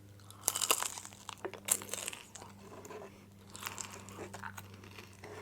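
Crunching bites and chewing of crispy fried rolled tacos close to the microphone, coming in a few short crackly bursts over a low steady hum.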